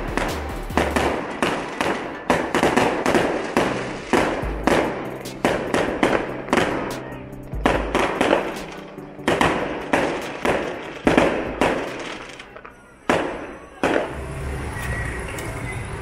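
Background music with a steady beat of sharp, ringing percussive hits. About two seconds before the end it stops, leaving a steady background sound.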